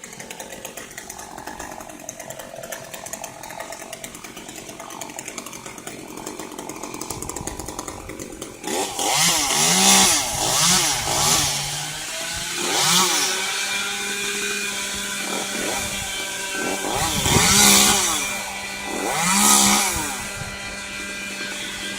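Chainsaw running, fainter and steady at first. About nine seconds in it gets suddenly louder and is revved up and down several times, settling back to idle between revs.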